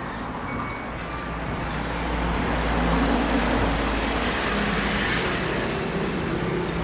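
A motor vehicle passing on a road, its engine and tyre noise swelling about two seconds in and slowly easing off.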